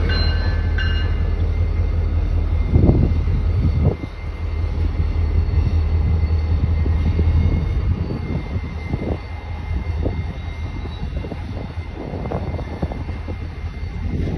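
Diesel-electric freight locomotives rumbling past slowly, their engines giving a deep steady drone that is heaviest for the first few seconds and then eases off to a lower, uneven rumble.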